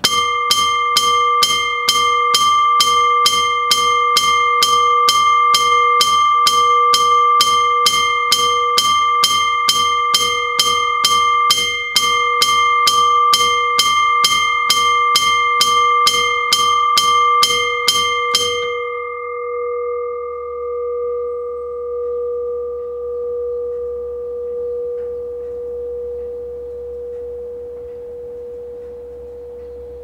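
Old electric railway crossing bell, the kind where a hammer strikes a metal dome bell, ringing at about two strikes a second. The strikes stop about 18 seconds in, and the bell rings on, fading slowly with a wavering hum.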